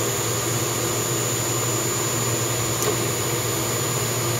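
Small CNC milling machine's VFD-driven spindle running steadily while an M5 roll-form tap in a tapping head taps holes. There is a constant hum with a steady high whine over it.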